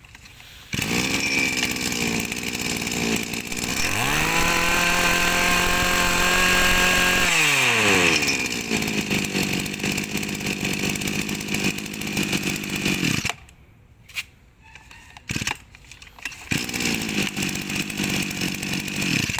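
Komatsu 24cc two-stroke brush cutter engine starting. It is blipped up and down a couple of times, held at high revs for a few seconds, then drops back to idle and is switched off. After a short pause with a few knocks, the engine runs again briefly and stops near the end.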